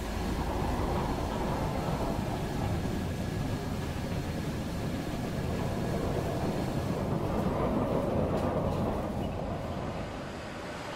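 Steady low rumble of heavy factory machinery running, easing off near the end.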